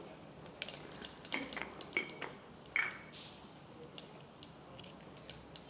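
Black peppercorns, urad dal and cumin seeds crackling faintly in hot ghee in a stainless-steel pressure cooker: scattered small pops and ticks of a South Indian tempering.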